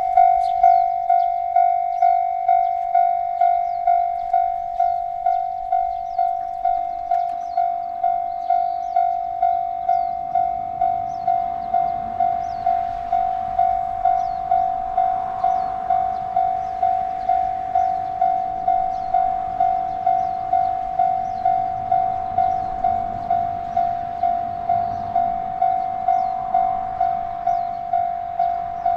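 Railway crossing bell ringing at a steady pace, about one and a half to two strokes a second, each ring decaying before the next. A low rumble builds underneath from about twelve seconds in.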